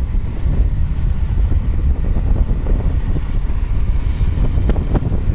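Wind buffeting the microphone while riding a motorcycle at speed: a steady, loud low rumble of wind and road noise.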